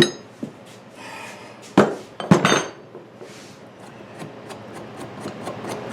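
Metal hand tools clinking and knocking on metal: a sharp ringing clink at the start, two louder knocks about two seconds in, then a run of faint quick ticks near the end.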